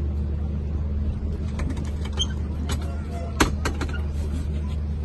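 Show-jumping arena ambience: a steady low rumble with faint murmur from the crowd, and a few sharp knocks through the middle, the loudest about three and a half seconds in.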